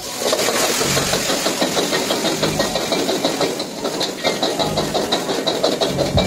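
Stir-frying in an iron wok over a high-flame gas burner: loud, steady sizzling and the rush of flames flaring up in the pan, starting just after the beginning. A steel ladle scrapes and clinks against the wok in a quick, regular rhythm.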